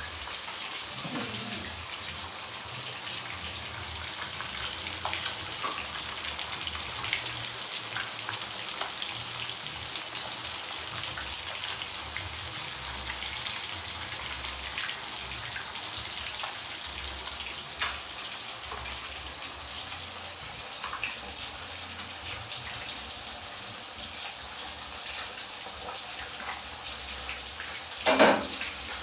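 Catfish pieces deep-frying in hot oil in a wok, a steady sizzle with small crackling pops. Near the end there is a brief louder knock or clatter.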